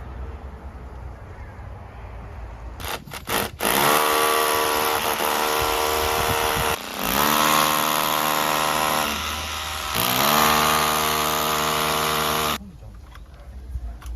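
An electric power drill, briefly blipped, then run hard in three long stretches with a motor whine over grinding noise. Its pitch sags in the middle stretch, and it stops abruptly.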